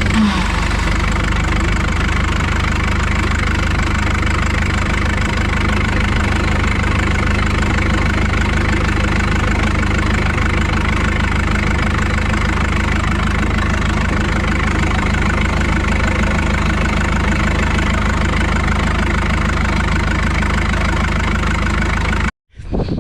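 Hitachi EX100 excavator's diesel engine running steadily at idle after a new fuel filter has been fitted and the fuel system bled. It cuts off suddenly near the end.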